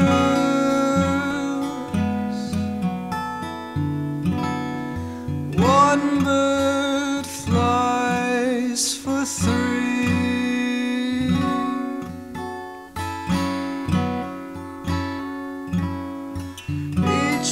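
Acoustic guitar strummed and picked, with a male voice singing a few sung phrases over it.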